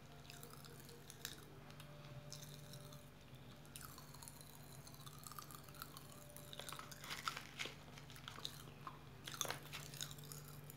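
Faint mouth sounds of a strawberry lollipop with popping-candy powder being eaten: soft crunching and small clicks over a steady low hum, getting busier in the last few seconds.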